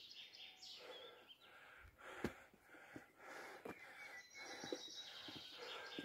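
Faint forest ambience: small birds chirping, with footsteps on a dirt road about once a second.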